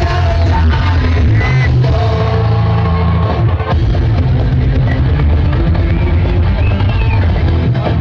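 Loud music with a heavy, continuous bass and a sustained melody, played over loudspeakers.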